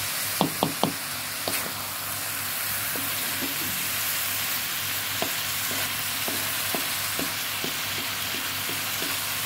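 Stir-fried long beans and tempeh sizzling steadily in a metal wok as a wooden spatula stirs them, knocking and scraping against the pan. There are three sharp knocks within the first second, then lighter taps about every half second.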